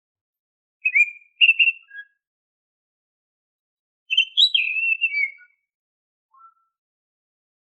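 Oriental magpie-robin singing clear, gliding whistles in short separate phrases: one about a second in, a longer one around four seconds in, and a faint low note after it.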